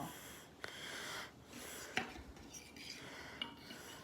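Faint rubbing and scraping with a few light clicks, as of small hard pieces being handled and rubbed together; no saw motor is running.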